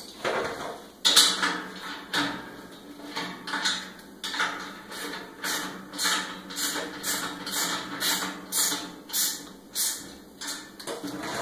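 A hand wrench tightening a nut and bolt on a lawn sweeper's steel frame. After a few scattered clanks of parts being handled, it settles into a regular run of short metallic clicks at about two a second.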